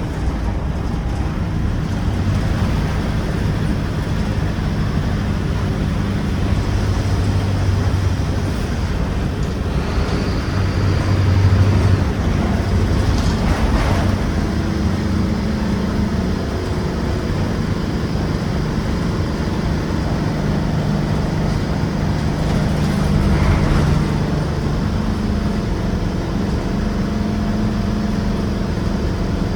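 Mercedes-Benz OF-1721 bus's OM 924 LA four-cylinder turbocharged diesel running while the bus drives, its note shifting up and down in pitch several times.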